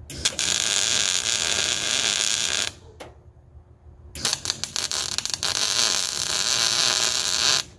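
MIG welder laying two tack welds on a steel beam: two runs of steady crackling arc hiss, the first about two and a half seconds long, then a short pause, then a longer one of about three and a half seconds that cuts off just before the end. The shielding gas has been turned up against the wind.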